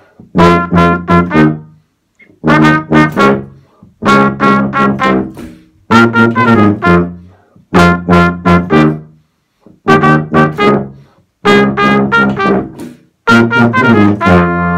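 Tuba and trumpet playing a duet: short phrases of quick, detached notes, one about every two seconds with brief silences between. Near the end they move into a long held chord.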